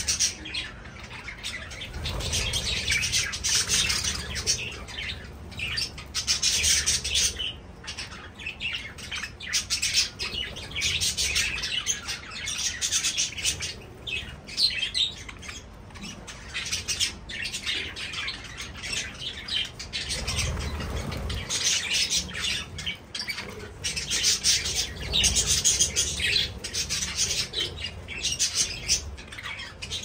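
A flock of budgerigars chattering and chirping continuously, many birds calling over one another.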